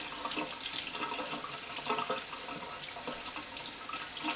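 Water running from a kitchen tap into a stainless steel sink as a cooked spanner crab is rinsed clean under the stream.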